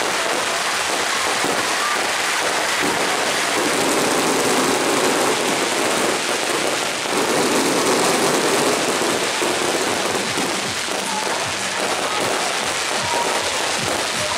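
A fireworks barrage going off without a pause, a dense, unbroken crackle of many small bursts.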